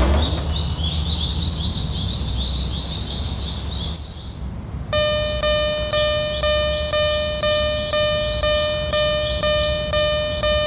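Electronic railway crossing warning sounds: a rapid run of short, rising high chirps for about four seconds, then, after a brief lull, a regular electronic crossing bell going kan-kan at about two strokes a second. A steady low rumble runs underneath.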